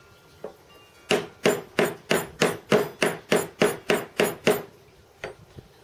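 Hammer tapping a bush into a cast-aluminium lead screw support: a single tap, then about a dozen quick, even taps at about three a second, and one more near the end.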